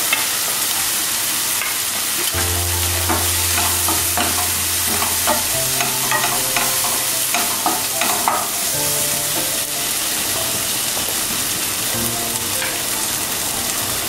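Coriander and cumin powder frying with softened tomato and ginger paste in a nonstick kadai, a steady sizzle. A wooden spatula stirs and scrapes against the pan, with the scrapes busiest in the middle of the stretch.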